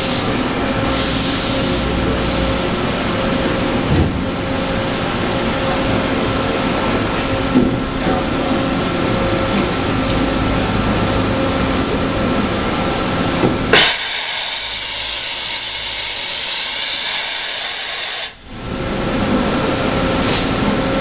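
Toshiba BTD13 CNC horizontal boring mill running: a loud, steady machine drone with a high whine. About fourteen seconds in, a sharp clack, after which the low rumble drops away for about four seconds before the full running noise comes back.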